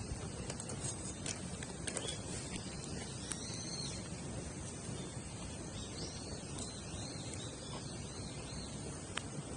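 Wood campfire crackling with scattered sharp pops, over a steady outdoor hiss, while short high chirps repeat in the background from the middle on.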